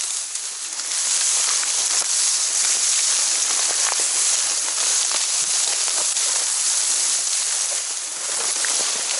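Dry reeds and tall marsh grass rustling and crackling continuously as they are pushed through on foot close to the microphone, with many small snaps of stems; it eases briefly near the end.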